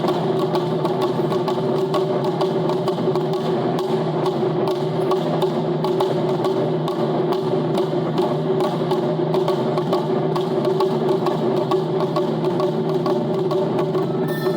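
Japanese taiko drums played in a fast, dense run of strikes over steady sustained tones.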